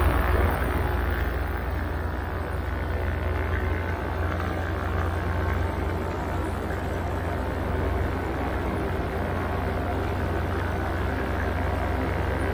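Motor and propeller running steadily in flight, with low wind rumble on the microphone; slightly louder at the very start.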